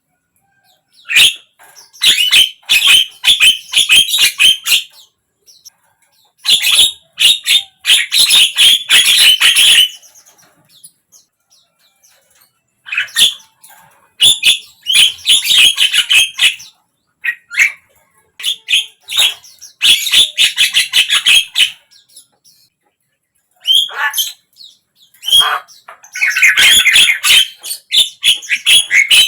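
Javan myna calling: loud bouts of rapid, harsh chattering a few seconds each, with short pauses between them, five bouts in all.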